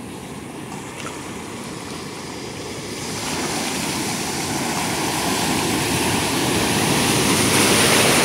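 Ocean surf breaking and washing in foam around a wader, swelling from about three seconds in to its loudest near the end.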